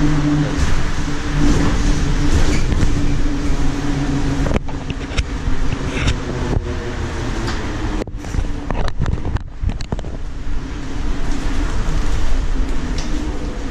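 A vehicle running, with a steady motor hum over a low rumble; between about four and ten seconds in, the sound cuts out briefly several times.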